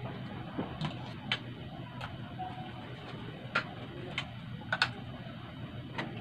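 Irregular sharp clicks of spoons and forks knocking against bowls and plates during a meal, about eight in all, over a steady low hum.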